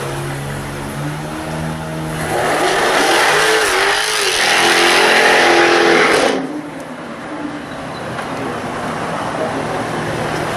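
Jaguar F-Type R's supercharged V8 revving hard under acceleration, the engine note rising loud for about four seconds from around two seconds in, then cutting off suddenly to a lower steady engine sound.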